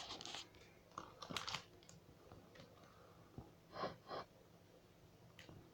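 Faint scattered clicks and small handling noises in a quiet room, with two short breaths near the microphone about four seconds in.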